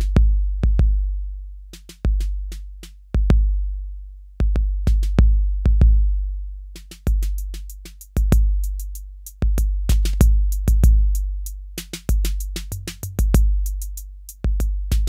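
Roland TR-808 drum machine beat: deep bass drum hits with a long booming decay about once a second, with short sharp clicks between them that grow busier in the middle.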